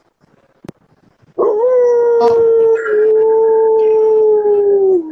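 Dog howling, picked up by a Ring security camera's microphone: after a single click, one long howl starts about a second and a half in, held at a steady pitch that shifts slightly partway and drops at the end.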